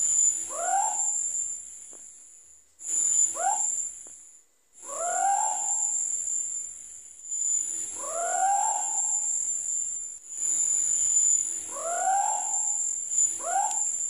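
Scops owl calling: about six separate hooting notes, each rising then falling in pitch and lasting under a second, a few seconds apart, over a steady high-pitched insect chorus.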